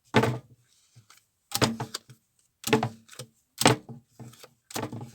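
Tarot cards being handled and laid down on a table: about five short slaps and clicks, roughly a second apart.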